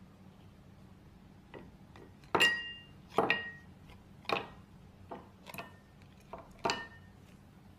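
Ice cubes set into glass tumblers with plastic tongs, knocking against the glass in a series of about eight clinks, the loudest leaving a short bright ring of the glass.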